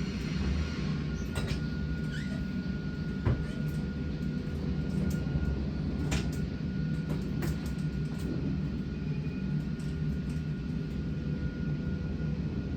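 Sawmill machinery running with a steady low hum and a thin, steady high whine, broken by several sharp knocks and clanks, four of them clearest.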